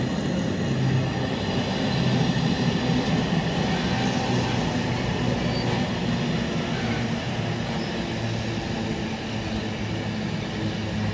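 Freight train of container flat wagons, carrying only two containers, rolling past on the rails: a steady rumble with a low hum underneath.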